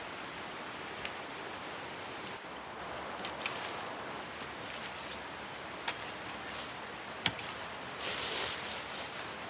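Camping gear being unpacked and set down by hand: a few sharp clicks and knocks spread through, then a burst of nylon fabric rustling near the end as a stuff sack is handled. All of it sits over a steady outdoor hiss.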